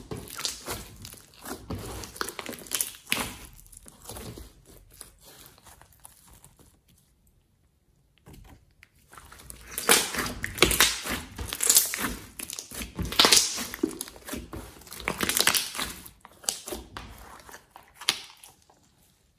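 Thick glossy slime being squeezed, folded and poked by hand, giving a quick irregular run of sticky pops and squelches. It goes nearly quiet about six to nine seconds in, then comes back louder.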